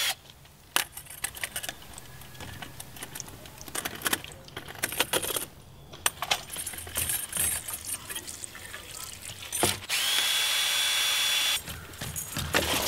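Clicks, knocks and rustling of a corrugated pool hose and its clamp being worked loose from a sand filter's multiport valve. About ten seconds in, a cordless drill with a nut driver bit runs steadily for about a second and a half, backing off a hose clamp.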